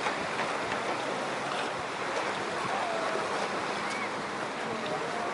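Steady wash of ocean surf on a busy beach, with faint distant voices of people now and then.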